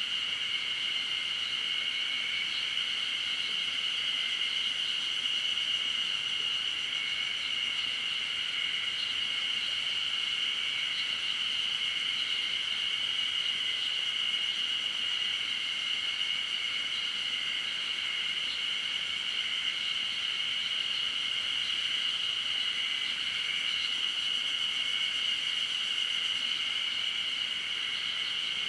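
Continuous chorus of insects, a high, even buzz with a fainter, slightly lower band beneath it.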